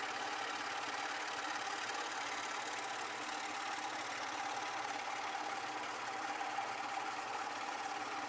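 Scroll saw running steadily, its blade cutting a thin mahogany board along a traced curve, with a constant motor hum.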